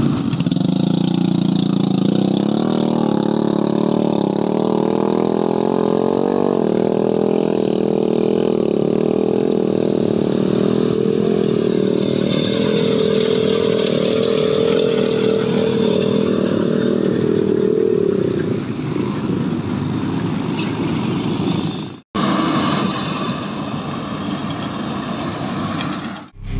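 An engine running steadily at an even speed. Near the end the sound cuts out for an instant, then an engine carries on more quietly.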